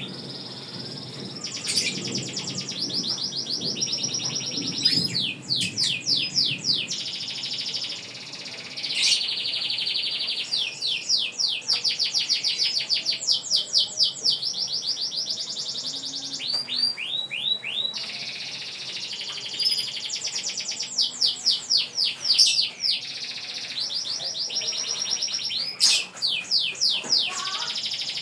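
Domestic canary singing a long, nearly unbroken song of rapid trills and runs of fast repeated notes, the long-breath song that keepers prize, with short breaks about eight and eighteen seconds in.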